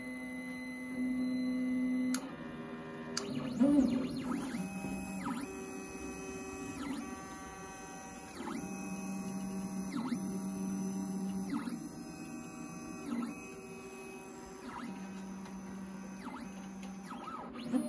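Stepper motors of a LowRider 3 CNC plasma table whining as the gantry and torch carriage trace an octagon in a dry run. The whine holds steady pitches, then sweeps down and back up about every second and a half as the machine slows and speeds up at each change of direction.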